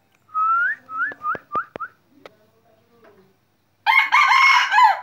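A young decoy rooster crows once near the end, a loud call of just over a second. Before it comes a quick run of about five short rising high-pitched calls, with a few sharp clicks.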